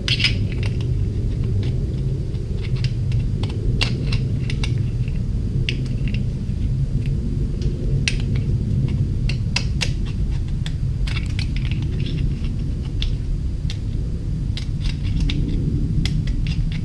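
Scattered light metallic clicks and clinks of small carburetor parts being handled, over a steady low hum.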